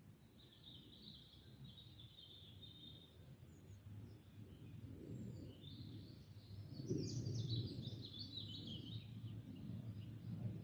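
Songbird twittering in quick high phrases, a short one near the start and a longer one from about the middle, over a low steady outdoor rumble that grows louder later on.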